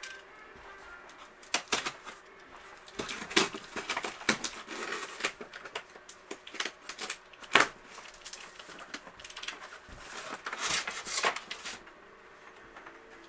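Cutter slitting the packing tape along the top of a large cardboard box, heard as an irregular run of sharp scrapes and taps, the loudest about seven and a half seconds in. Near the end the cardboard flaps are pulled open.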